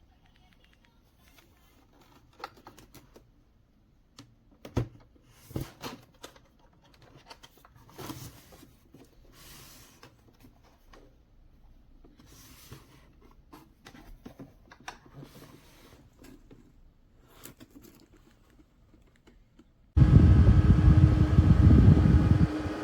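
Faint scattered clicks and handling rustles, then near the end the fan of a small portable evaporative air cooler starts abruptly and runs loud and steady with a hum.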